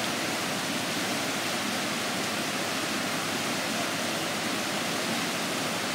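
Swollen, fast-flowing stream rushing steadily, a constant roar of churning water.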